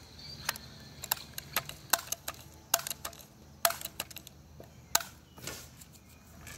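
Crosman 760 Pumpmaster air rifle being loaded with a BB and handled: a string of about a dozen irregular sharp clicks and clacks of the bolt and plastic and metal parts.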